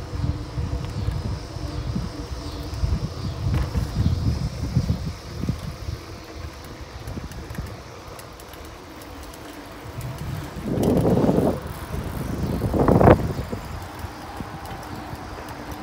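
Wind rumbling on the microphone of a moving bicycle, with tyres rolling on pavement. It is unsteady through the first half and quieter after that, with two louder rushes of noise about eleven and thirteen seconds in.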